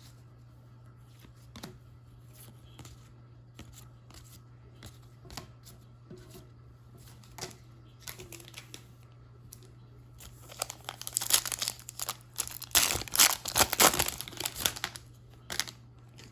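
Light clicks of trading cards being handled over a low steady hum, then about ten seconds in a few seconds of loud tearing and crinkling as a foil card-pack wrapper is ripped open.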